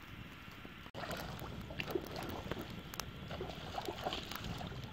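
Small wood fire of dry sticks crackling and popping, with many short sharp cracks over a steady rush. The sound drops out for an instant about a second in, and the crackling is louder and closer after it.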